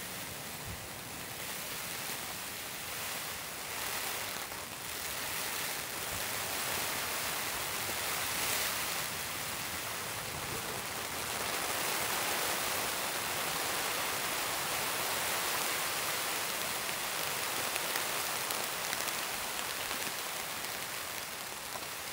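Steady rain falling, an even hiss that grows a little heavier after several seconds.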